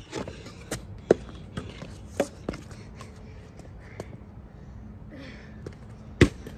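A series of sharp knocks and taps, a few at a time, the loudest one near the end.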